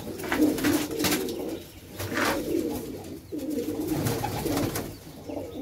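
Domestic pigeons cooing in a loft, in repeated phrases of about a second each, with a few short sharp wing flaps among them.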